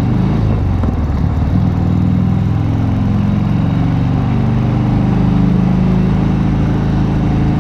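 Cruiser motorcycle engine running steadily while riding at road speed, with wind rushing over the microphone.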